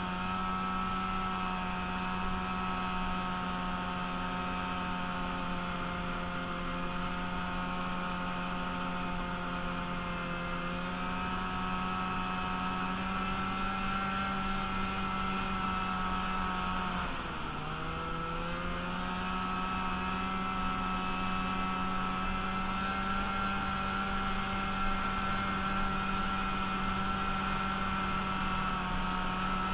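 Engine of a freshly rebuilt vehicle running under way at a steady speed on its first ride. About seventeen seconds in, the revs drop sharply for a moment, then climb back and hold steady again.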